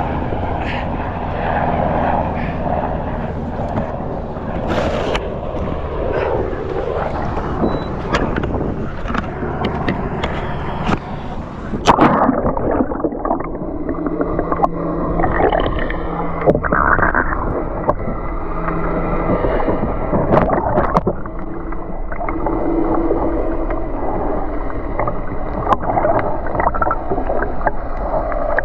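Wind on the microphone and water sloshing around a kayak, then about halfway through a sharp knock after which the sound turns muffled: water swishing and gurgling around a camera held under the surface.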